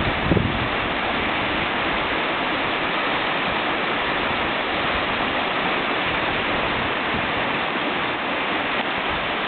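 River rapids rushing steadily: a loud, even wash of whitewater, with a brief low bump just after the start.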